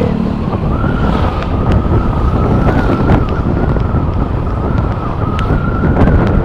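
Wind buffeting the microphone on a moving vehicle, a dense low rumble, with a steady high whine running through it that steps up slightly about a second in.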